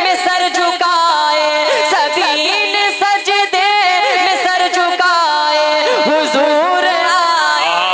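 A boy's voice singing a naat into a microphone, drawing out long, ornamented held notes.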